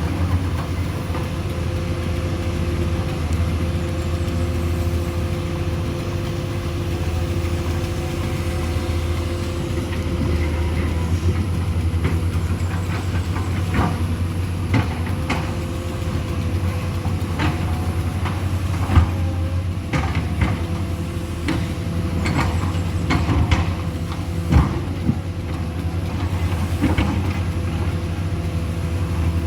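Heavy engine running steadily at a low rumble, with scattered knocks and clanks from about twelve seconds in.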